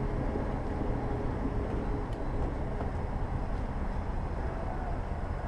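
Steady low rumble of vehicle engines and traffic.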